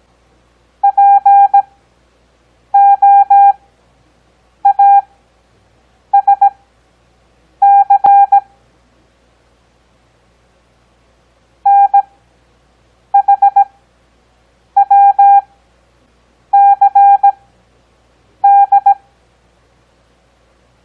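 Morse code practice tones: a steady mid-pitched beep keyed into dots and dashes at a 17 WPM character speed with Farnsworth spacing, giving long gaps of about a second between characters. Ten characters are sent, with a longer word gap near the middle.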